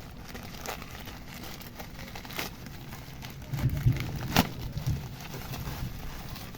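Handling noise from unpacking a parcel: faint crinkling, a few sharp clicks, and a run of low bumps a little past halfway.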